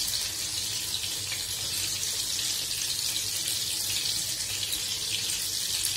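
Hot oil sizzling steadily as oyster bhaji (kalva fritters) deep-fry in a pan: an even, high hiss.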